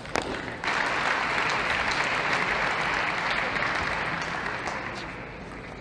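Arena crowd applauding a won point in a table tennis match. The applause starts suddenly about half a second in, just after one sharp click, and dies away near the end.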